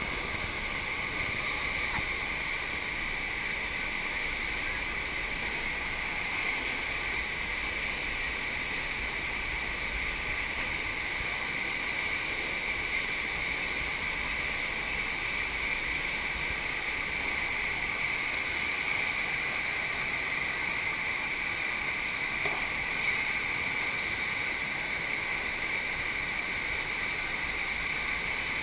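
Steady rush of water pumped over a sheet-wave surf machine's riding surface, running evenly throughout.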